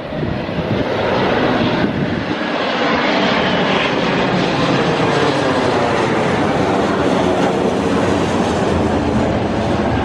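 Jet airliner passing low overhead on landing approach. Its engine noise swells about a second in and then holds loud and steady, with a faint, slowly falling whine.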